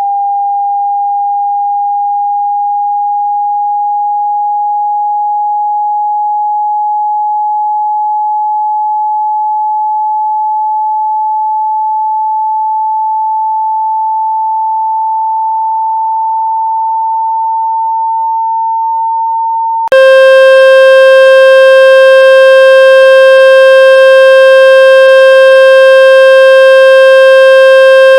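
Electronic test tone for pushing water out of a wet speaker. A pure tone rises slowly in pitch, then about twenty seconds in it switches abruptly to a louder, buzzy tone at a lower pitch.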